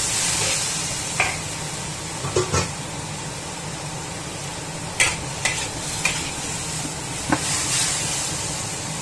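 Water spinach sizzling in a hot wok while a metal spatula stir-fries it, with a steady hiss and several irregular clinks and scrapes of the spatula against the wok.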